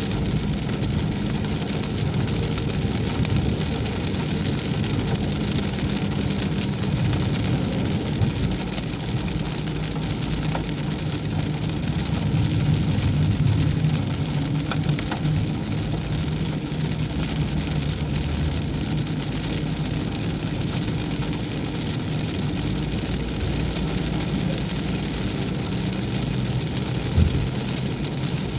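Car driving on a wet road in heavy rain: steady engine and tyre noise with the hiss of rain, and one short knock near the end.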